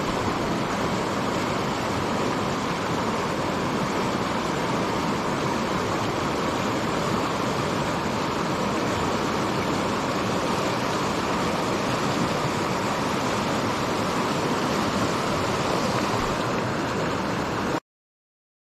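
Steady rush of flowing river water, which cuts off abruptly near the end.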